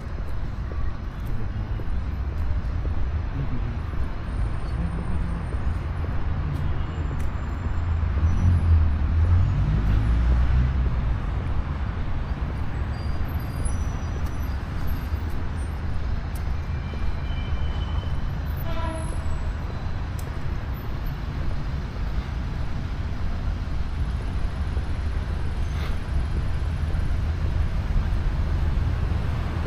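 City street traffic: vehicles running past in a continuous low rumble, with one passing louder about eight to eleven seconds in.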